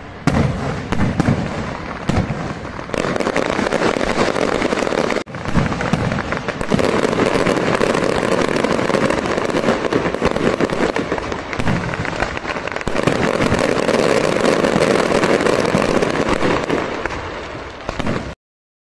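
Fireworks display: ground fireworks and aerial shells going off together in a dense, continuous barrage of bangs and crackles, with a brief break about five seconds in. It cuts off suddenly near the end.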